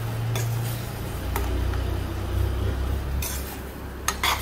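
A metal spoon stirs greens in a stainless steel pot, clinking against the pot's side a few times. The loudest is a quick double clink near the end, over a low steady hum.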